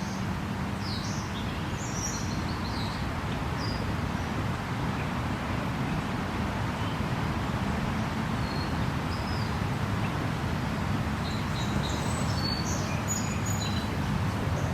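Birds chirping in short, high calls, several near the start and another cluster near the end, over a steady low rumble.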